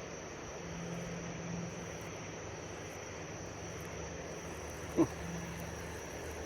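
Steady rushing of river water with a low hum underneath and a faint, steady high tone. About five seconds in, a short, sharp sound drops quickly in pitch.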